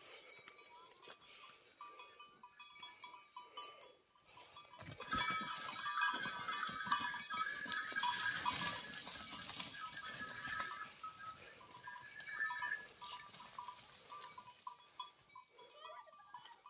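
Bulls shoving and moving through dry undergrowth: hooves and crashing brush scuffle, loudest from about five to thirteen seconds in. A light jingling of cattle bells rings through it.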